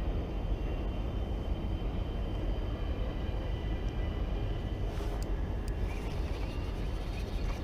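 Steady low rumble, with a few faint high tones held above it and a couple of light clicks about five seconds in.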